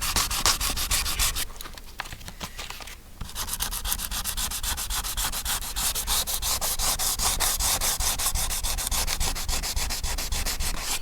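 Coarse P80 sandpaper rubbed in quick, even back-and-forth strokes over a car bonnet, abrading cracked, flaking paint down toward bare steel. The strokes ease off for a second or so about a second and a half in, then pick up again.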